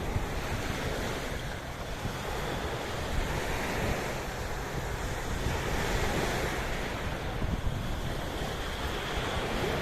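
Sea waves washing in a steady wash of surf that swells and eases over a few seconds, with wind rumbling on the microphone.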